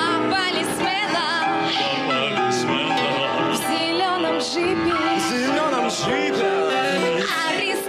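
Grand piano accompanying a live blues song, with singing voices over it; the lead voice wavers with vibrato.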